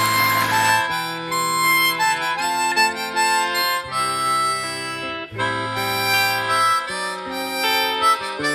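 Instrumental background music: a melody of held notes over a bass line that changes about once a second.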